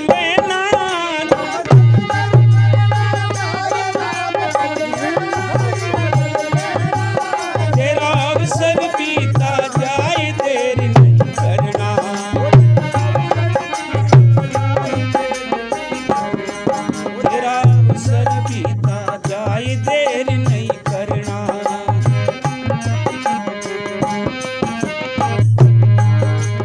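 Hindi devotional bhajan music: tabla-style hand drums in a steady rhythm, with deep drum strokes recurring, under a wavering melody line.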